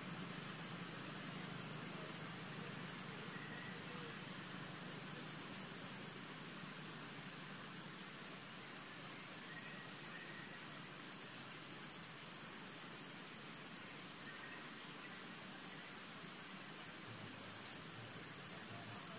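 Insects singing in a steady, high-pitched, unbroken drone.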